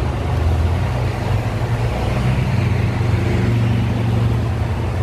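A steady, low engine drone running without a break.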